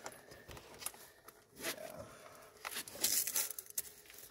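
Faint rustling and scraping with light metal clicks as hands and a tool work a bolt into its thread in a lawn tractor's steering assembly, with a louder rustle about three seconds in.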